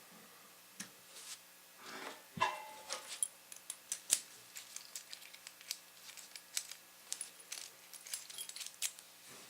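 Light, irregular metallic clicks and rattles of a small pin cam lock being screwed together with its cam screw and worked to check that it operates.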